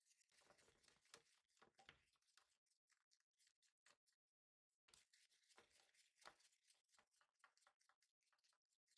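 Near silence: faint scattered clicks and crackles, stopping briefly a little after four seconds in.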